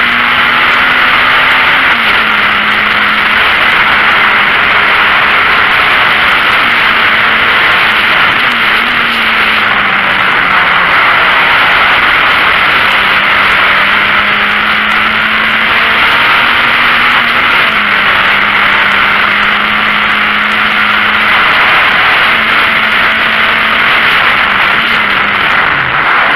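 VW Golf Mk1 race car's four-cylinder engine heard from inside the cabin at racing speed: a loud, hissy roar of engine, wind and road noise, with the engine note stepping down and climbing again several times through gear changes and lifts.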